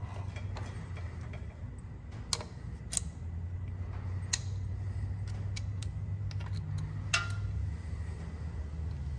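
Scattered sharp metal clinks and taps of a socket and pump fittings being handled, the loudest a bit after seven seconds in, over a low steady hum.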